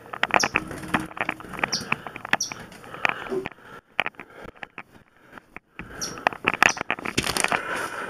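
Irregular knocks, clicks and scraping from things being handled and moved, with a few short high squeaks scattered through.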